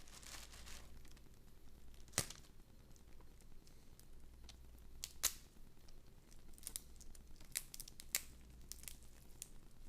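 Faint crackling and small clicks of blue crab shell and cartilage being crushed and picked apart by fingers, with two sharper cracks about two and five seconds in and a run of clicks near the end.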